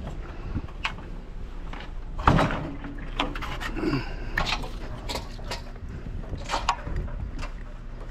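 Knocks, clunks and scrapes of a discarded hot water heater being handled and shifted into a truck bed, with one louder bang a little over two seconds in. A steady low hum runs underneath.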